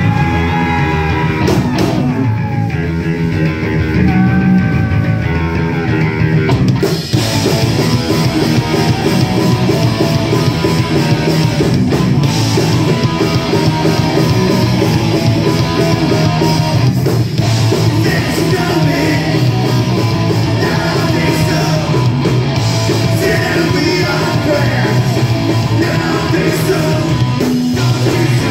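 Live rock band playing loud: distorted electric guitars hold and bend notes over bass, then the drum kit and full band come in harder about seven seconds in, with a singer shouting into the microphone.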